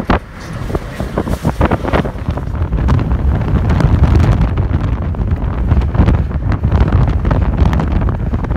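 Wind buffeting the phone's microphone inside a moving car, a loud low rumble over road noise that gets louder about three seconds in, when the phone turns toward the side window.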